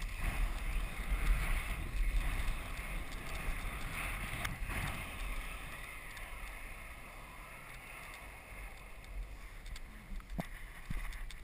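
Inflatable snow tube sliding down a snow run: wind rushing over the microphone with the hiss and rumble of the tube on snow, gradually dying away as it slows. A few faint knocks near the end.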